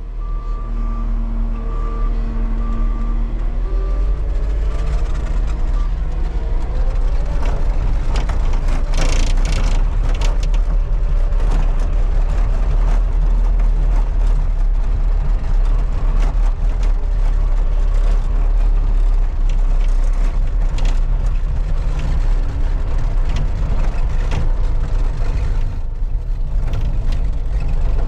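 Heavy diesel machinery running with a deep, steady rumble. A backup alarm beeps intermittently in the first few seconds, and the engine pitch rises about four seconds in.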